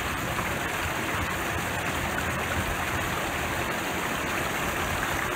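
Steady rushing noise of wind buffeting a phone's microphone, with an unsteady low rumble underneath.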